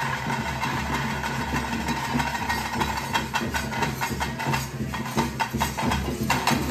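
Daiva kola ritual music: drums beaten in quick, continuous strokes over a steady droning tone.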